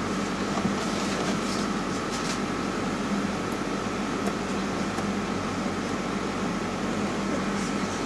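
Steady background hum and hiss, with a low hum and a thin, faint, high steady tone, and a few faint, brief scratchy sounds over it.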